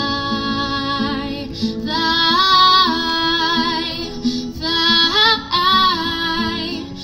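A woman singing to her own acoustic guitar accompaniment, holding long wavering notes twice over the guitar chords.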